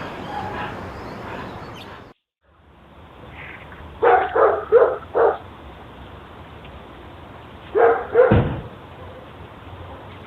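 A dog barking: a quick run of four barks about four seconds in, then two more a few seconds later.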